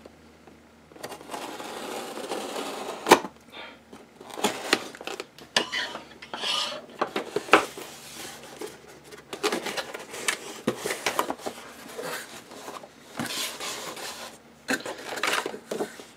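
A cardboard mailer box being opened and handled on a wooden desk: a rasping scrape for about two seconds early on, a sharp knock, then irregular rustling, scraping and light taps of cardboard and paper as the box is tipped and its contents pulled out.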